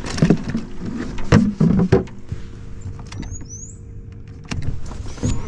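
Irregular knocks and clattering from handling gear and fish in a small boat, loudest in the first two seconds, over a steady low hum. Short high rising chirps sound near the middle and again near the end, and a few sharp clicks come near the end.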